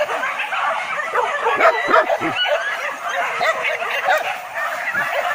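Several hunting dogs yelping and baying over one another without a break, high-pitched and excited.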